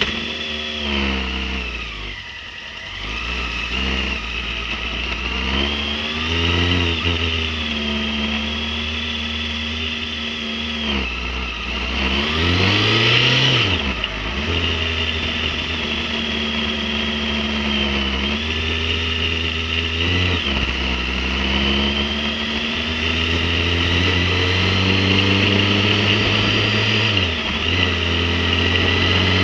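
Motorcycle engine running in traffic, its pitch rising and falling as it accelerates, eases off and shifts gear, with a quick sharp rev about twelve seconds in.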